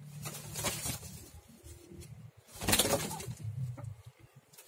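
Roosters fighting: two flurries of wing flapping and scuffling, the louder one a little past the middle, over low, throaty calls from the birds.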